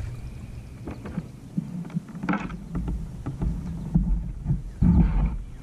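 Handling noise in a kayak: scattered clicks and knocks of a fishing rod and line being worked, with heavier thumps against the hull near the end, over a low rumble.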